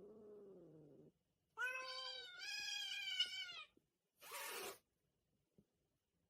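A cat meowing: a faint falling meow, then a long drawn-out meow of about two seconds with a wavering pitch, followed by a short breathy noise.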